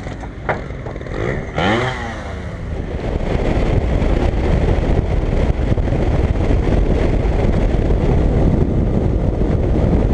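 For about the first two and a half seconds an engine revs up and down. Then a motorcycle rides at steady speed, heard from a camera mounted on it: loud rushing wind and engine and road noise.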